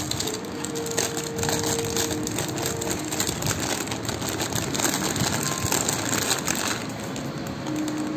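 Clear polythene packaging crinkling and crackling as it is handled around a gold-plated CZ jewellery set, with a dense patter of small crackles that eases off near the end.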